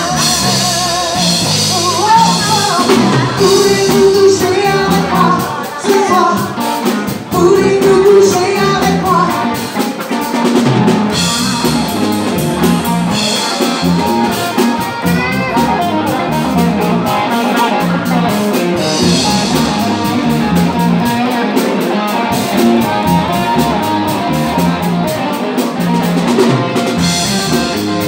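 Live rock band playing: a woman singing over electric guitar, bass guitar and a Gretsch drum kit. The singing is most prominent over the first ten seconds or so, then the instruments carry on.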